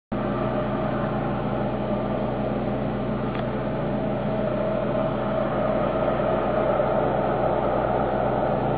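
Steady engine drone with a constant hum, from the trawling fishing boats' engines running offshore.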